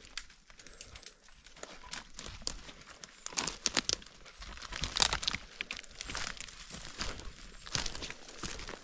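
Crunching and crackling of dry leaf litter and brush underfoot while walking through the woods: an irregular run of rustles and snaps, busiest and loudest around the middle and again near the end.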